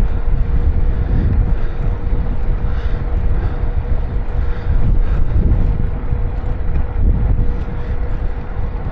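Wind buffeting the microphone of a bicycle rider's camera while riding, a loud uneven rumble with a faint steady hum under it.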